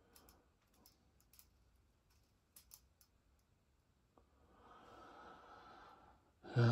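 Light scattered clicks of small plastic toy pieces and packaging being handled. Near the end comes a breath out, then a short loud vocal sound like a sigh.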